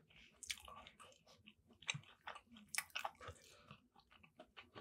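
A person chewing a mouthful of buffalo chicken mac and cheese with the mouth closed: faint, irregular wet clicks and smacks.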